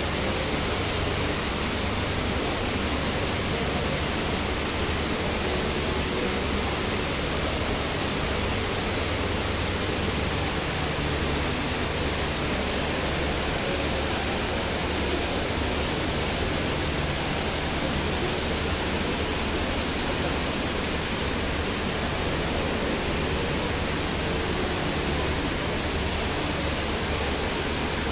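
Steady rush of a tall indoor water-curtain waterfall, water falling several storeys down into a pool below.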